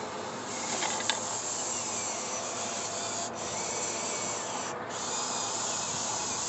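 Radio-controlled excavator digging in dirt: a steady whirring and scraping from its motor and bucket working the soil. There are a couple of sharp clicks about a second in and two brief breaks later on.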